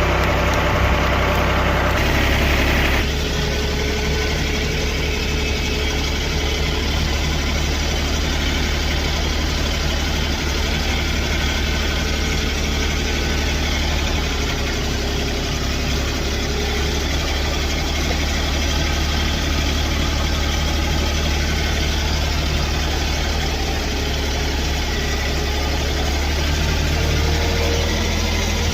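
An engine running steadily at low speed, of the kind on machinery used to pull or clear a tree, with a slight change in its sound about three seconds in.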